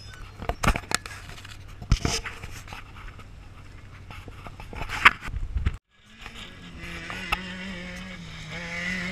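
Several sharp knocks and scrapes. After a sudden cut about six seconds in, an off-road race vehicle's engine runs steadily, its pitch rising slightly near the end.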